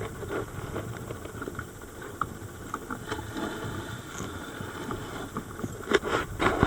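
Underwater sound on a dive: a steady low rumble with scattered small clicks, then about six seconds in the gushing burst of a scuba diver's exhaled bubbles from the regulator.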